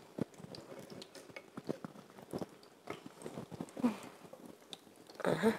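Scattered light crackles and soft taps of food being handled during brick pastry preparation, with no steady sizzle.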